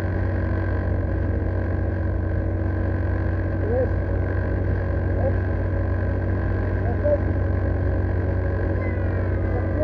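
40 hp outboard motor running steadily at speed, pushing a small boat through the water: a constant low drone and hum. A few faint short chirping sounds come through over it.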